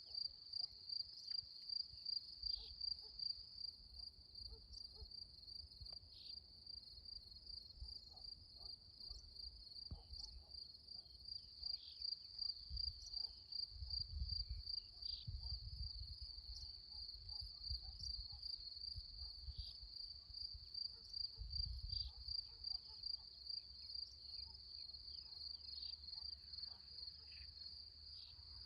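Crickets chirping in a steady, high-pitched pulse, about three chirps a second, without a break. A low rumble rises and falls beneath it, strongest around the middle.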